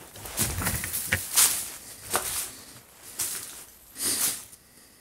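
Footsteps crunching and rustling through dry leaves and undergrowth, in irregular steps that stop near the end.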